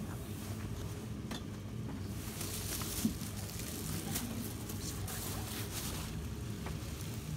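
Low background murmur and shuffling of a crowd packed into a small room, with rustling and a few faint clicks, and a single soft knock about three seconds in.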